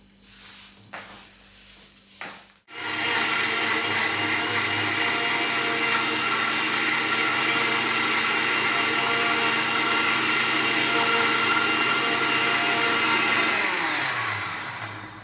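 Sujata electric mixer grinder switched on, running at full speed with a steady high whine and grinding noise, then switched off near the end, its pitch falling as the motor spins down.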